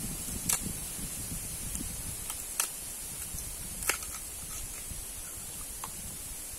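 Knife cutting and peeling the husk off a wild bamboo shoot: a few sharp cracks of the blade through the fibrous sheath, with papery rustling in between.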